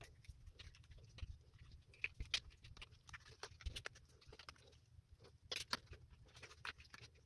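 Silicone mold being peeled and flexed off cured resin letters: faint, irregular crackling and soft clicks as the resin pops free, with a few sharper snaps partway through.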